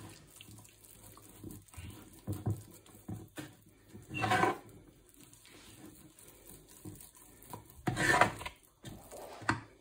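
A fork stirring flour into water to mix a wet pizza dough in a bowl, a soft sticky scraping with a few louder scrapes of the fork against the bowl.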